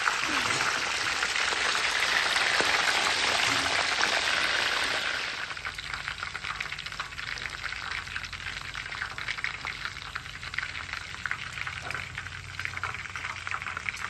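Smoked chicken wings deep-frying in hot oil in a pan on a griddle: a dense, steady sizzle that drops about five seconds in to a lighter crackle of small pops.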